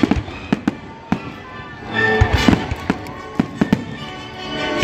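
Fireworks bursting in a run of sharp bangs, a few each second, over an orchestra playing live; the music swells a little past two seconds in.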